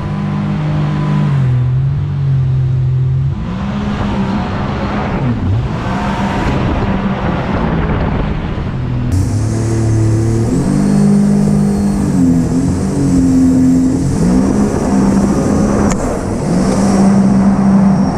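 Boat motor running hard under way, its pitch stepping and gliding up and down as the throttle is worked, with two brief sharp dips about five and fourteen seconds in. Rushing water and wash over the hull along with it.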